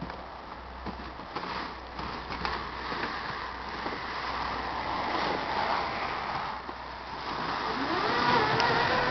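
Electric-converted Ski-Doo MXZ snowmobile pulling away over crusty snow: an even rushing noise from the track with light clicks and knocks, growing louder, and near the end a whine from the electric drive rising in pitch as it speeds up.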